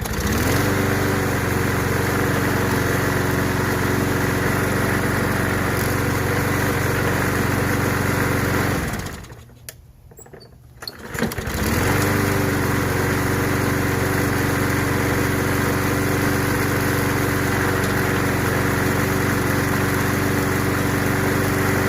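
Briggs & Stratton 190cc push-mower engine catching and running steadily. It winds down and stops about nine seconds in, then starts again a couple of seconds later and runs steadily until it dies away at the very end. It is being kept going with starting fluid, and the owner puts the trouble down to dirt in the carburetor.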